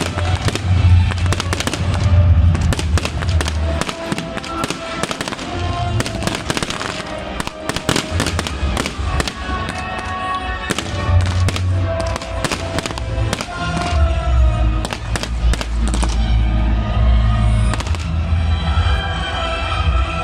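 Fireworks going off in quick succession, a dense run of bangs and crackles, over loud accompanying music with heavy bass.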